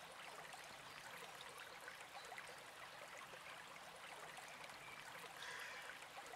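Faint, steady running-water hiss like a stream, with a faint higher sound joining about five seconds in.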